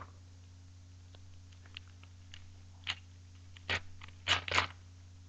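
Foil trading-card pack wrapper crinkling and rustling in the hands as a hockey card pack is opened: a few faint crackles, then louder crinkles about three, four and four and a half seconds in, over a steady low hum.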